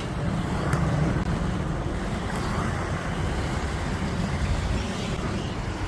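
Inline skate wheels rolling over pavement: a steady low rumble, with wind noise on the microphone.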